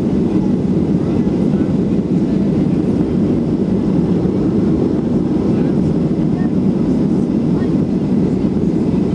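Steady cabin noise of a Boeing 737-300 in the climb after takeoff: its CFM56-3 turbofan engines and the rush of air past the fuselage, heard from a window seat as an even, low-pitched drone.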